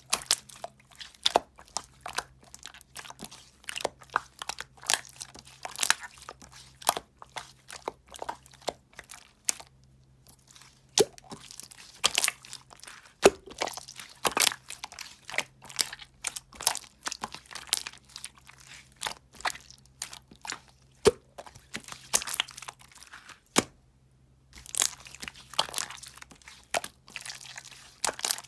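Close-up crunching and crackling: a rapid, irregular run of sharp clicks and crackles, some much louder than others. It breaks off briefly about ten seconds in and again near the end.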